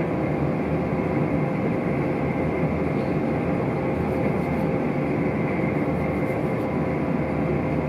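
Inside the carriage of a passenger train running at speed: the steady rumble of the wheels on the rails and the running carriage, with a steady tone running through it.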